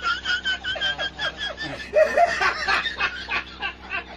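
A man laughing hard and uncontrollably, in quick repeated high-pitched bursts.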